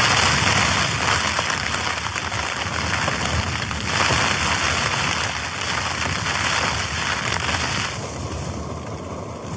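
Storm wind buffeting the Hilleberg Soulo tent, its fabric flapping and crackling in a dense rushing noise that swells and eases in gusts, lessening a little near the end.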